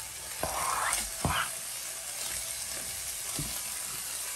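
Browned ground beef sizzling steadily in a hot nonstick skillet. Chopped garlic is scraped off a cutting board into the pan: the sizzle swells about half a second in, with a couple of short knocks against the pan in the first second and a half and another near the end.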